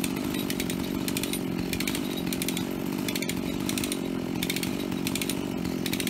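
Dolmar 7900 chainsaw running steadily at high revs, cutting into the trunk of a large spruce.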